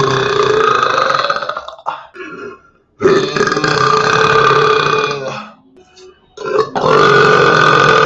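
A person belching loudly in long, drawn-out burps of about three seconds each: one ends a little under two seconds in, with a brief one after it, a second runs from about three to five and a half seconds in, and a third starts near seven seconds and is still going at the end.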